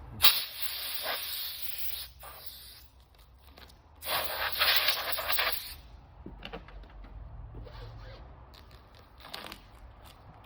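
Scratchy rubbing against the car's painted rear hatch in two stretches, the first starting with a sharp scrape just after the start and lasting about two seconds, the second about four seconds in. This is the noise of clearing freshly drilled metal shavings off the paint.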